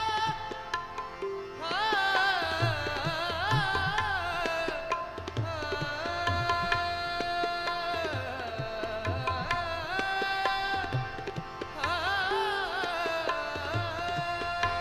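Sikh kirtan: harmoniums holding a sustained melody while a tabla keeps a steady rhythm with deep bass strokes. A voice sings wavering, ornamented phrases about two seconds in and again near the twelve-second mark.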